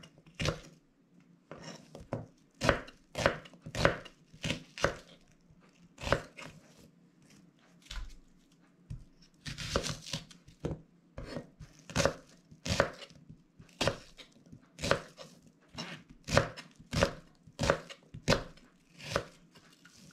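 Kitchen knife chopping an onion into small wedges on a plastic cutting board: separate sharp knocks of the blade against the board, about one or two a second at an uneven pace, with a brief rustle about halfway through.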